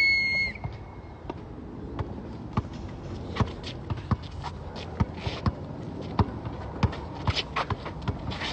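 A referee's whistle blast that cuts off about half a second in, then a basketball bouncing on an outdoor asphalt court with players' footsteps: sharp, irregular knocks a few times a second.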